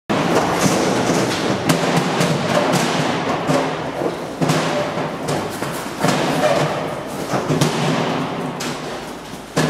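Cattle hooves thudding and clattering irregularly on a metal-floored pen and livestock trailer ramp, with knocks from steel gates, over a steady low hum.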